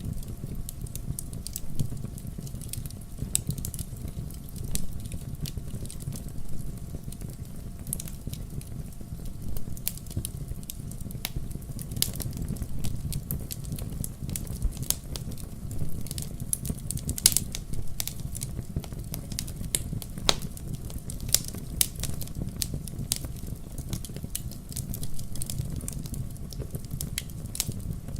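Wood fire burning in a fireplace: a steady low rumble of flames with frequent sharp crackles and pops at irregular intervals.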